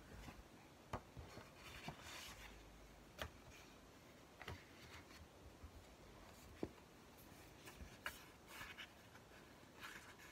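Quiet handling of books and paper on a desk: soft rustling of pages with scattered light taps and clicks, a few seconds apart.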